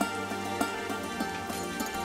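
Instrumental background music: short repeated notes over a held low tone.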